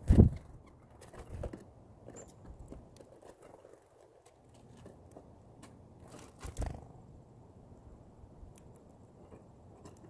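Chickadees at a pile of sunflower seeds: wing flutters and soft thumps as the birds land and take off close to the microphone, loudest right at the start and again about six and a half seconds in, with light clicks and rustles of seeds being pecked and shuffled in between.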